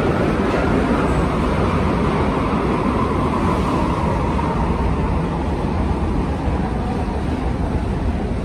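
New York City subway train running through the station, a steady rumble that slowly fades, with a faint motor whine that dies away partway through.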